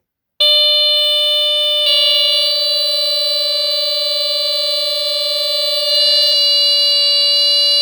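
Two 1978 Honeywell smoke detectors, a TC89B and a CD200A, both with Kobishi horns, sounding on their test buttons: one steady loud alarm tone starts, a second joins about a second and a half later, and one cuts out near the end while the later-starting one keeps on.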